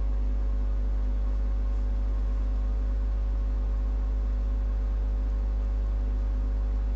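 Steady low electrical hum, like mains hum, with a stack of even overtones and a faint hiss over it. It holds unchanged throughout.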